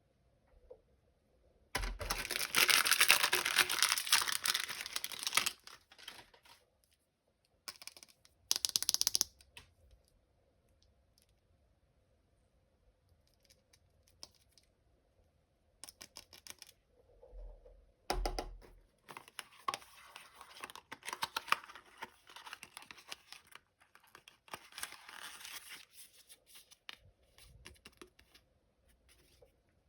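Packaging being torn open by hand, with one loud tear of about three seconds near the start and two short ones a few seconds later. In the second half comes irregular crinkling and rustling as the wrapper is handled.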